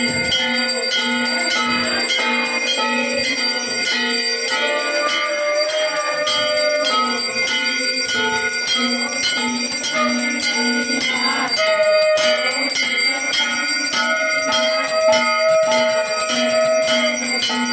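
Brass temple bells rung rapidly and without pause during an aarti. A conch shell is blown in long held notes a few times over them.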